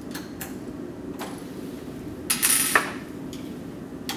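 Small metal parts of a busbar end-feed terminal clicking and scraping as copper conductor pieces are handled and fitted by hand, with a louder scrape a little past two seconds in that ends in a sharp click. A steady low hum runs underneath.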